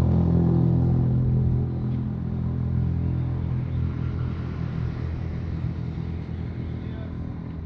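Low, steady engine hum of a nearby motor vehicle, holding one pitch and fading gradually after about a second and a half.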